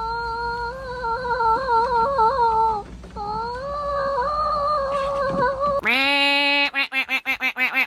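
Long, wavering vocal sounds: two drawn-out notes that waver in pitch, then a lower note broken into rapid pulses for the last two seconds.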